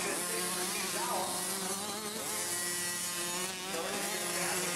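Several small two-stroke youth motocross bikes racing. Their engines rev up and back off in rising and falling whines, one after another, about once a second.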